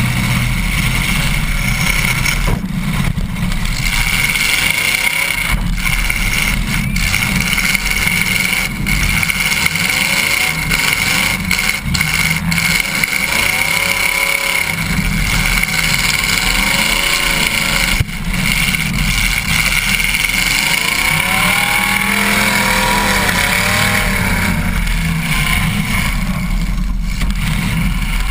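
Demolition derby car's engine running loud from inside its gutted cabin, its pitch rising and falling as the driver revs it, with a few sharp knocks from the car's body along the way.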